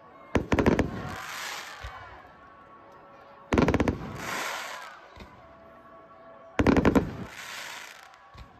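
Aerial fireworks going off in three volleys of rapid sharp bangs, about three seconds apart. Each volley is followed by about a second of fading crackle.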